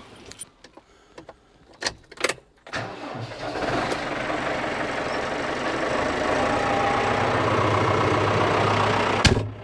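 A few clicks, then a tractor engine starting about three seconds in and settling into a steady idle. The sound cuts off abruptly with a click near the end.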